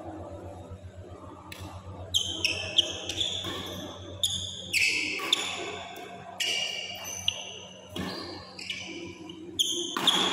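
Badminton rally: sharp racket strikes on the shuttlecock mixed with high-pitched squeaks of court shoes on the synthetic court mat, coming in quick succession, one or two a second.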